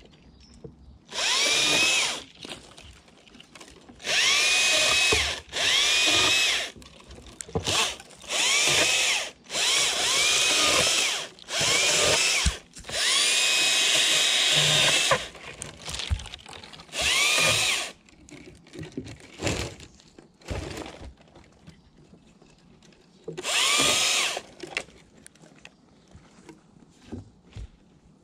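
Stihl chainsaw revved in repeated bursts of one to two seconds as it cuts through apple tree branches, with quieter lulls between cuts. The pitch climbs quickly at the start of each burst. There are about ten cuts, then a longer pause and one more burst near the end.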